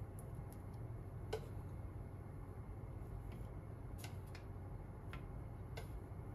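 Wooden chopsticks tapping lightly against the pan and bowl as pieces of teriyaki chicken are picked up and set on rice. About six small sharp clicks, the clearest about a second in, over a low steady hum.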